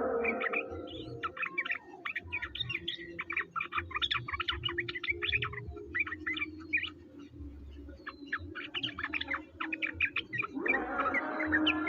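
Songbird chirping and twittering in rapid series of short, high notes, with a brief thinning partway through. A low steady tone runs underneath, and a denser, layered sound comes in near the end.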